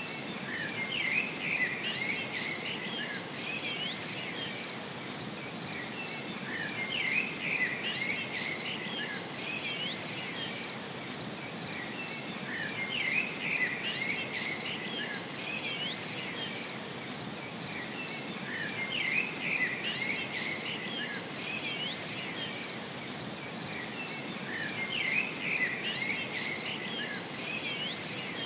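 Nature ambience: crickets chirping in a steady, even pulse, with short bursts of birds twittering about every six seconds over a constant background hiss.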